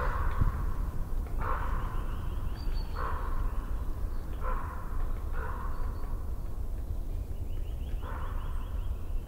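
A bird giving a series of harsh, raspy calls, about six, each under a second long and irregularly spaced, over a steady low rumble.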